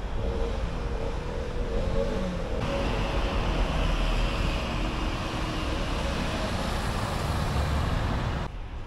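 City street traffic: cars driving past with a steady rumble of tyres and engines, one passing close. The sound changes abruptly about two and a half seconds in and drops away suddenly near the end.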